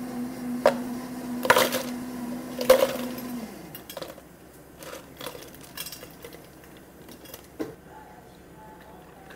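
Ice cubes clattering from a metal ice scoop into tall plastic cups, in three loud bursts in the first three seconds, over a steady machine hum that winds down soon after. Then lighter, scattered clinks of ice shifting as coffee is poured over it.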